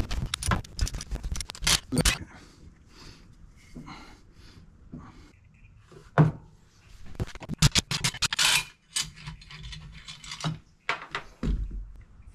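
Clicks, scrapes and knocks of hands and tools working among the hoses, fittings and wiring of a jet ski's engine bay as lines are disconnected. A quick run of clicks comes at the start, scattered knocks follow, and a dull thump comes near the end.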